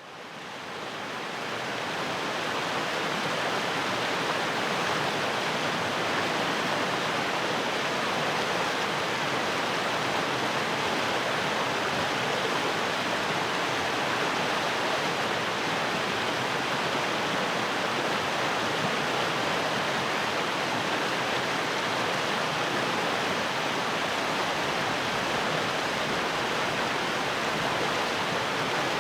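Fast-flowing stream rushing over rocks in a steady, full wash of water noise, fading in over the first couple of seconds.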